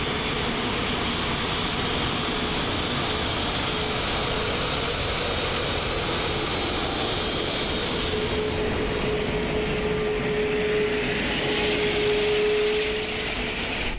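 Airbus A380's Rolls-Royce Trent 900 turbofans running at taxi power as the aircraft rolls past close by: a steady jet rush with a held whine. The whine and rush build over the second half and drop away just before the end as the engines pass.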